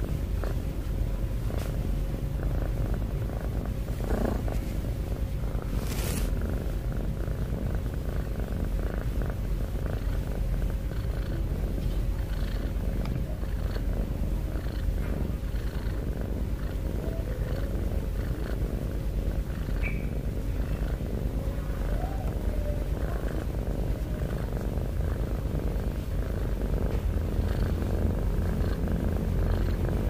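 Domestic cat purring steadily, close up, with a low, rapidly pulsing sound that grows a little louder near the end.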